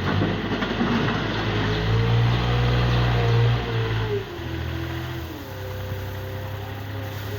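A construction vehicle's engine running. It rises in pitch and loudness for a couple of seconds, then drops back about four seconds in and runs on steadily.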